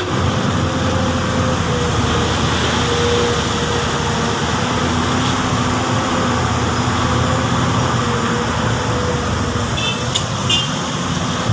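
Komatsu PC200 excavator working: its diesel engine runs steadily under a whine that wavers slightly in pitch. A few short clicks come near the end.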